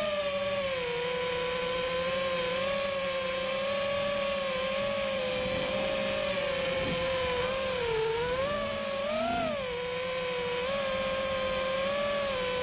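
FPV quadcopter's brushless motors and propellers giving a steady high whine in flight. The pitch shifts with throttle: it dips about two-thirds of the way through, then rises briefly.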